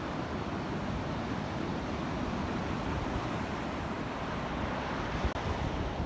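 Small ocean waves breaking and washing up a sandy beach in a steady hiss, with wind buffeting the microphone in a low fluttering rumble.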